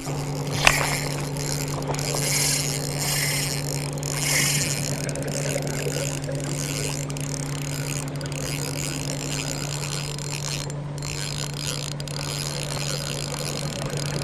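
Intro sound effects under a logo animation: a steady low two-tone hum, with a sharp click about a second in and a shimmering hiss over the first few seconds.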